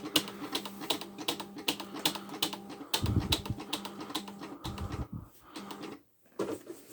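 Smith Corona 250 DLE electronic typewriter loading paper after return is pressed: its feed mechanism runs with a fast series of clicks over a steady motor hum, with a couple of heavier clunks partway through before it stops.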